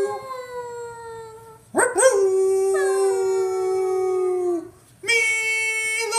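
Beagle howling in long, drawn-out notes: a howl trailing off at the start, a steady howl of about three seconds with a second falling howl overlapping it partway through, then another long howl starting near the end.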